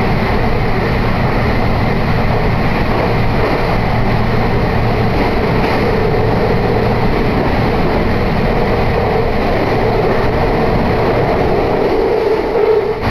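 Meitetsu Hiromi Line electric train running, heard from inside the passenger car: a steady rumble of wheels and running gear with a humming tone that grows louder near the end.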